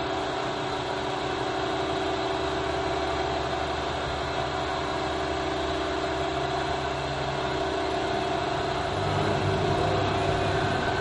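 A steady rumbling drone with several held tones, growing a little louder about nine seconds in.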